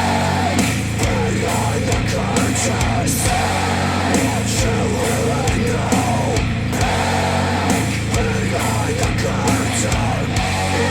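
Heavy rock music with a steady driving beat and held bass notes, played back through Wharfedale Denton 80th bookshelf speakers on a NAD C 338 amplifier.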